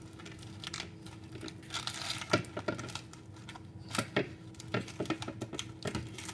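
Hands folding a tortilla around a burrito filling on a ceramic plate: soft rustling and crinkling with irregular light taps and clicks, over a faint steady hum.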